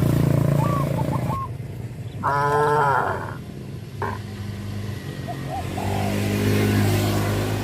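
A cow moos once, briefly, about two seconds in, over the steady running of a small motorcycle engine that drops away and comes back in the second half.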